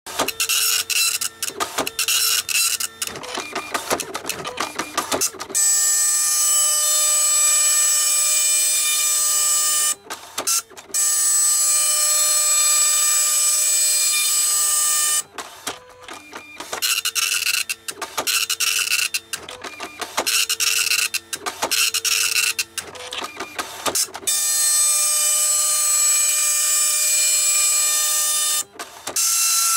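Epson LQ-300+II 24-pin dot matrix printer printing a solid black bar at its slowest, densest setting: the print head gives a loud, steady buzz with a high whine in long passes of four to five seconds each. Between passes come choppy stretches of short stop-start bursts. This is the heavy-wear printing that the owner reckons costs the head about a week of its life.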